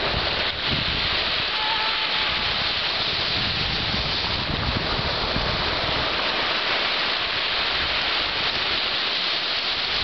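Small Black Sea waves breaking over shoreline rocks and washing up a sand beach: a steady hiss of surf and foam.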